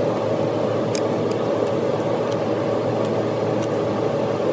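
Steady droning background noise, with a few faint metallic clicks of small picks prying at a snap ring on a tractor transmission's gear shaft.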